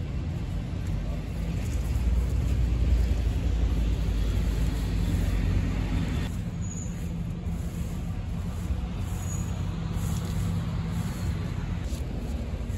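Bus engine running in nearby road traffic, a steady low rumble that swells a couple of seconds in; a hiss stops abruptly about six seconds in.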